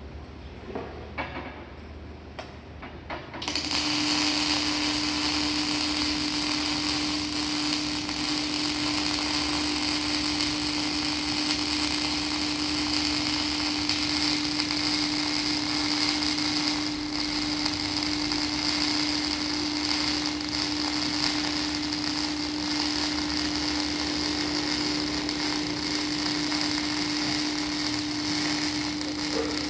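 Electric arc welding: after a few light clicks, the arc strikes about three and a half seconds in and then runs as a steady crackling hiss with a steady low hum underneath.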